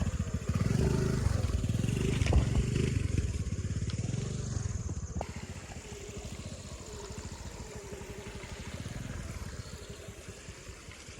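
Motorcycle engine running with uneven revs, louder for the first few seconds, then quieter after an abrupt change about five seconds in.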